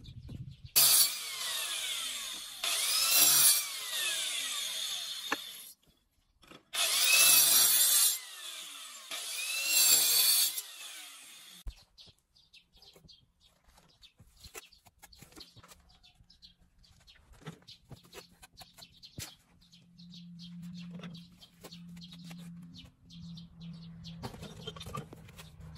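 A handheld motor-driven cutting tool runs twice, about five seconds each time, with a short break between. Its motor whine dips and rises as it bites under load. After the second run it stops, leaving faint clicks.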